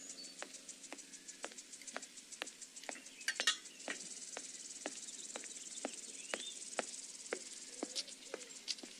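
Hard footsteps on pavement, about two a second, over a steady chirring of crickets, with an occasional short bird chirp.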